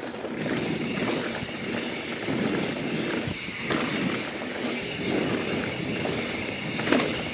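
Mountain bike rolling fast down a smooth dirt trail: a steady rush of tyre noise and wind, with a few light knocks from the bike.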